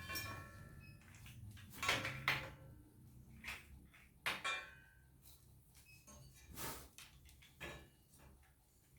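Parts of a small rack being unpacked and handled: irregular sharp knocks and clacks of hard pieces against each other, several with a short ring after them, the loudest a pair about two seconds in and another pair a little after four seconds.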